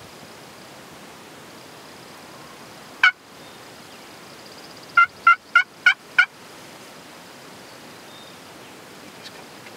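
Turkey calling: one short, sharp note about three seconds in, then a run of five short yelps, about three a second, two seconds later.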